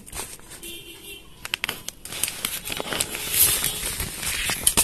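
Handling and unpacking an electric mosquito racket: plastic packaging crinkling, with irregular clicks and knocks of the racket's plastic body, busiest in the second half.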